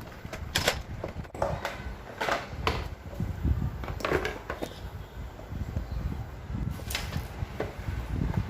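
Plastic parts of an evaporative air-cooler fan being handled and pulled apart: scattered knocks and clicks, several in the first half and a few more near the end, over a low rumble.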